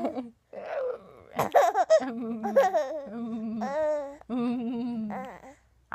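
A baby giggling and laughing in short bursts, mixed with an adult's playful vocal noises.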